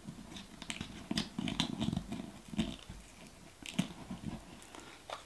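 Fingernails picking and scratching at the seal of a small plastic toy capsule, with irregular clicks, taps and rustling handling noise.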